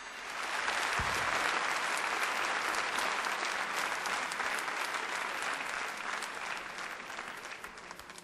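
Concert-hall audience applauding at the end of a song. The applause swells up in the first second, holds, then dies away near the end.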